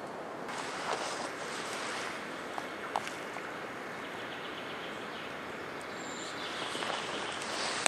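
Steady outdoor background hiss with a few faint clicks, ending in a single sharp crack.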